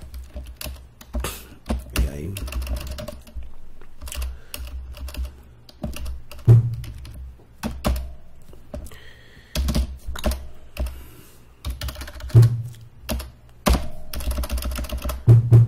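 Typing on a computer keyboard: irregular keystrokes, with a few louder thuds among them.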